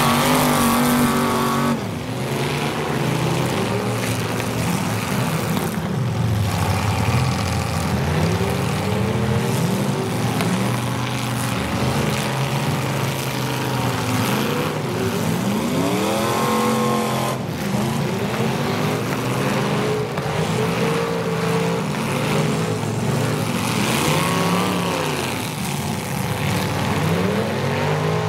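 Several full-size demolition derby cars' engines revving hard at once, their overlapping pitches rising and falling again and again.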